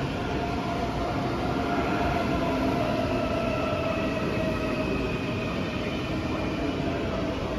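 DB class 423 S-Bahn electric multiple unit passing close by: steady wheel and running noise with a high whine that falls slightly in pitch.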